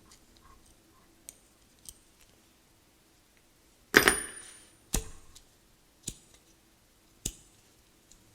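Vintage Firefly Flick semi-automatic petrol lighter being struck again and again: a couple of faint clicks, then four sharp metallic strikes of its lid-and-flint-wheel action about a second apart, the first loudest with a brief ring. The freshly re-wicked lighter is not catching, which the owner thinks could be vapor lock after refuelling.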